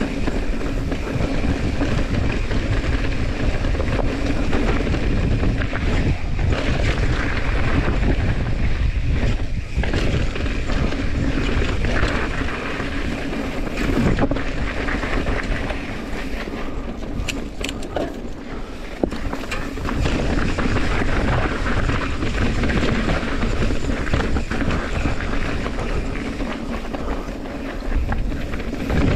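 Mountain bike riding over rocky singletrack: steady wind rush on the camera microphone with the tyres and bike rattling over the rock, and a few sharp clicks and knocks midway.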